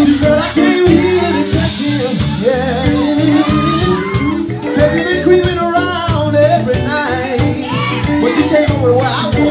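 Live band performing: a male vocalist sings into a microphone over electric guitar, bass guitar and a drum kit keeping a steady beat.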